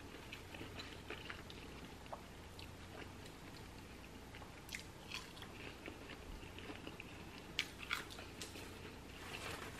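Faint chewing and mouth sounds of someone eating french fries, with scattered soft clicks and a few sharper smacks around the middle and near the end.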